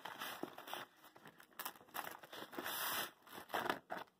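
Hands handling and opening a nylon zippered PowerSpec cable pouch: irregular rustling and scraping of fabric and plastic, with a longer rasp about three seconds in.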